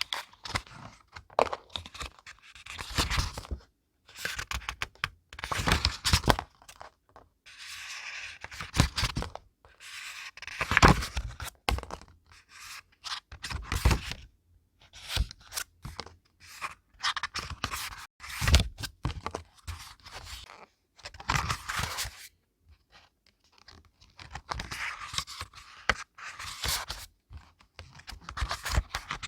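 Paper being handled for scrapbook journaling: irregular bursts of rustling, scraping and tearing with short pauses between them and a few soft thumps.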